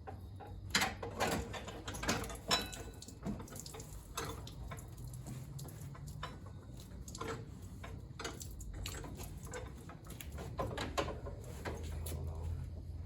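Irregular knocks, clanks and scrapes of hand work under a truck's hood, with sharp strikes scattered throughout, as the radiator is being loosened and pulled out.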